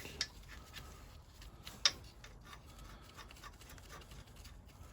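Faint handling noises of small metal engine parts, with a few light clicks and one sharper click about two seconds in.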